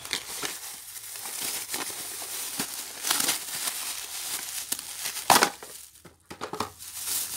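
Cardboard packaging being handled and opened, then a clear plastic bag holding a knitted belt pulled out: steady rustling and crinkling, with a few sharper scrapes, the loudest about five seconds in.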